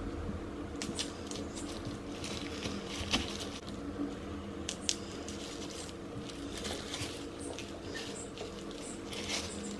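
Pieces of raw bell pepper, onion and tomato being pushed onto a wooden skewer by hand: irregular soft squishes and little clicks, with a plastic glove crinkling, over a steady low hum.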